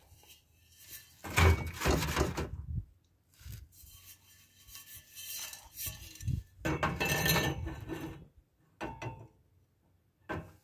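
Metal exhaust pipe parts being handled and fitted together, clinking and scraping against each other in a few separate bursts with pauses between.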